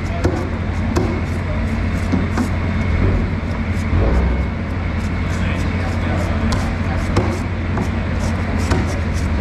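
A large knife scraping the scaly skin off a billfish in repeated short strokes, the blade clicking and rasping against the skin and scales, over a steady low hum.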